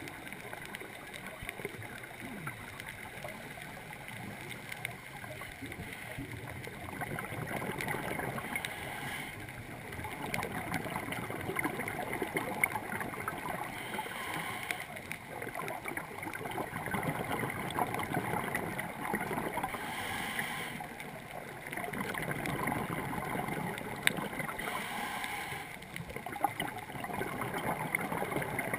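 Scuba diver breathing on a regulator underwater, heard through a GoPro housing. Exhaled bubbles gurgle and rumble in surges about every five or six seconds, with a short hiss between them at each inhale.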